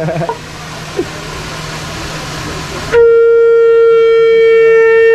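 A conch shell (shankha) blown as a horn: one long, steady, loud note with a bright, buzzing ring starts about three seconds in and is still sounding at the end. Before it there is only a steady background hiss.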